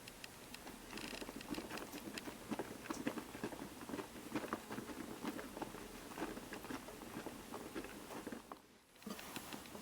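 DDR Piko Professional WS5522 washing machine's drum turning at the end of a rinse, wet laundry tumbling with a dense, irregular patter and splashing. The sound drops out briefly near the end, then resumes.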